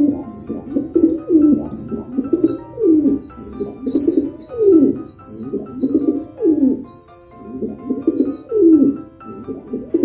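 Domestic pigeon cooing, a low falling coo repeated about once a second, over light background music.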